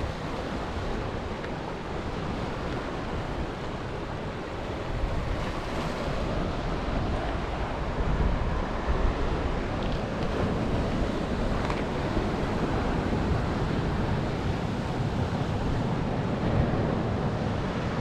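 Waves breaking and washing over a rocky shore, a steady surf that swells a little about five seconds in, with wind buffeting the microphone.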